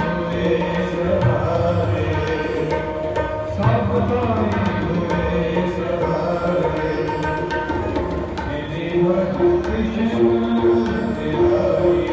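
Sikh kirtan music: harmoniums hold sustained chords over a steady tabla rhythm.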